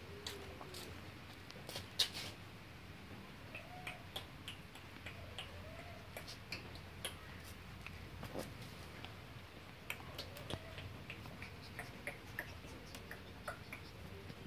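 Two puppies play-fighting on a concrete floor: an irregular scatter of faint clicks and taps from claws scrabbling and jaws snapping, with one sharper click about two seconds in.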